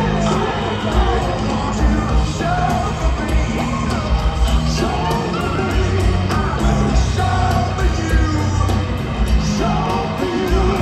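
Live rock band playing in an arena: a lead vocal sings over a steady beat of drums and bass guitar, heard from the stands.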